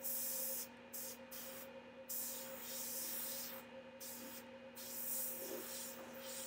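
A series of hissing blasts of compressed air, some short and one about a second and a half long, blowing wet alcohol ink across a porcelain egg and lifting off loose gold.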